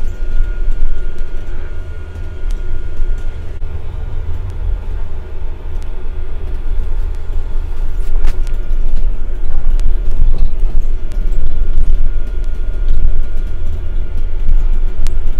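Moving double-decker bus heard from inside: a deep, steady engine and road rumble with a faint steady whine above it, and a sharp knock about eight seconds in.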